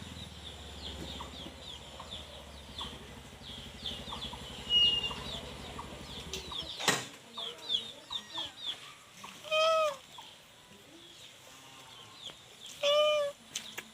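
Kitten meowing twice, loud and rising then falling in pitch, about ten and thirteen seconds in. Underneath are many short high chirps over the first nine seconds and a low hum that stops with a sharp click about seven seconds in.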